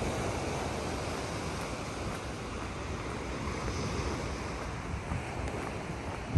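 Sea waves washing onto the beach in a steady surf wash, with wind buffeting the microphone.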